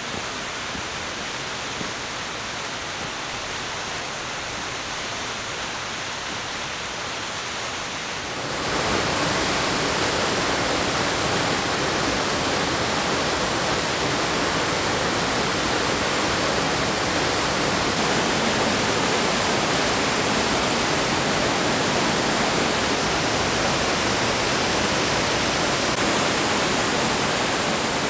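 Steady rush of falling water from the Aira Force waterfall, which grows suddenly louder and fuller about eight and a half seconds in.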